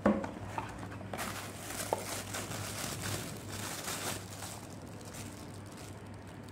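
A sharp knock, then a clear plastic bag crinkling and rustling for about three seconds as a power adapter and cable wrapped in it are handled, over a low steady hum.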